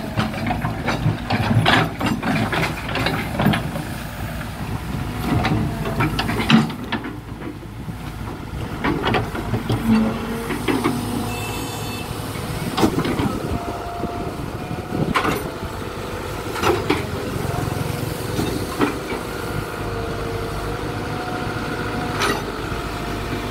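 Caterpillar hydraulic excavator's diesel engine running under working load as the boom and bucket swing and dig, with a steady whine through the second half and repeated knocks and clanks of the bucket and machinery.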